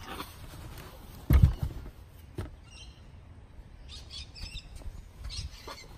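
A removed folding rear seat from a Mercedes-Benz A160 being handled inside the car: one heavy thump just over a second in, a sharp click about a second later, and a few faint high chirps in the middle.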